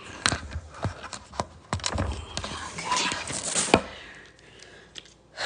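Objects being handled: a string of irregular clicks and knocks, with a stretch of rustling about three seconds in that ends in a sharp knock.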